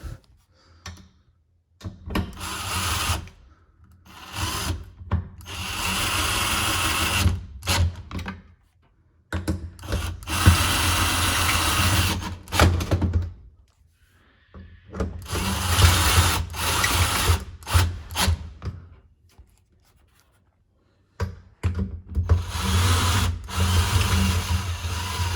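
Power driver running bolts down, tightening the shifter-mount bolts: about five runs of one to three seconds each with short pauses between.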